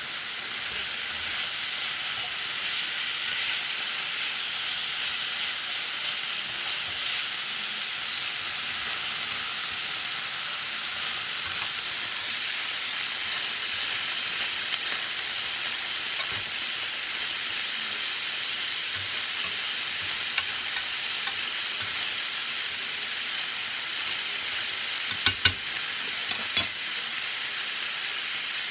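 Snap peas, carrots, bell pepper and onion sizzling steadily in a hot stainless steel sauté pan as they are stir-fried. A few sharp metal clacks of tongs against the pan come near the end.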